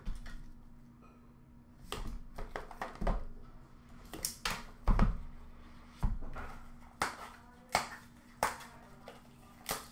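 A cardboard hobby box of 2021-22 Leaf Art of Hockey cards being handled and opened: a string of sharp clicks, taps and rustles as the seal and lid are worked off. Heavier knocks with a dull thud come about five and six seconds in, as the box meets the counter.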